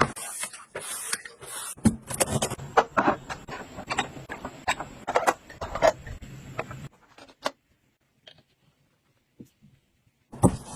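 Small household items being handled: a quick, irregular run of clicks, taps and light knocks, which stops about seven seconds in, leaving near silence broken by a few single clicks.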